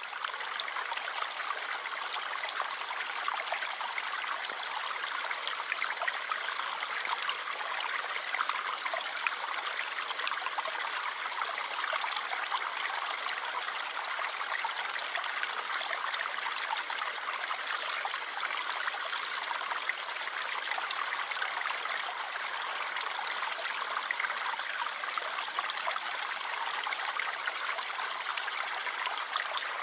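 Flowing stream water, a steady trickling, babbling rush with no change in level.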